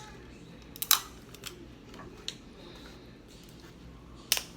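Crab shell being cracked and broken apart by hand: a few sharp cracks and clicks, the loudest about a second in and another near the end.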